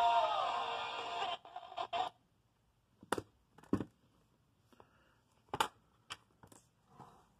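Music playing from a Sony WM-AF59 Walkman through small portable speakers stops abruptly about a second and a half in. Then come about eight sharp plastic clicks and knocks, a few at a time, as the player's buttons and case are handled.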